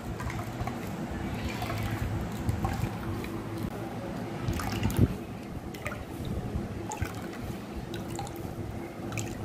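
Coconut milk trickling and dripping from a cloth strainer into a glass bowl as wet ground coconut is squeezed by hand, with small wet squishes. A single thump about five seconds in.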